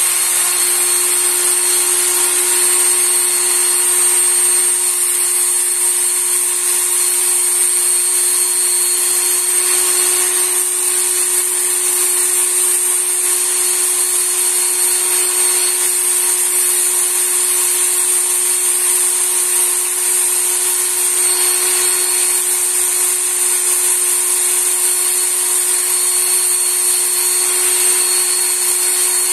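Work Sharp Knife & Tool Sharpener running at top speed, a steady whine of its motor and abrasive belt, with a knife blade held against the belt wet with honing coolant.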